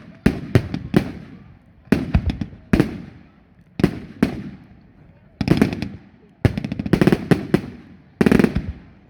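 Fireworks going off in a series of loud, sharp bangs, each trailing off with an echo. They quicken into rapid clusters of bangs in the second half.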